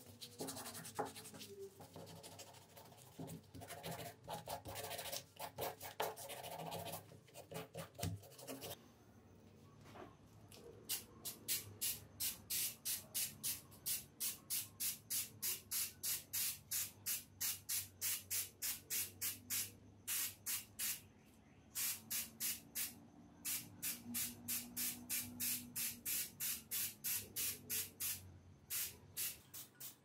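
Sandpaper rubbing back and forth on a small metal part, then, after a short pause, an aerosol spray-paint can hissing in short rapid bursts, about three a second, with a couple of brief breaks.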